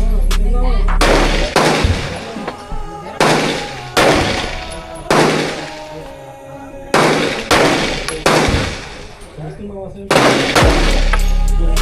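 A string of single gunshots fired at the range, about nine in all at irregular intervals of roughly a second, each with a long ringing tail. A hip-hop music bed with heavy bass plays at the start and comes back near the end.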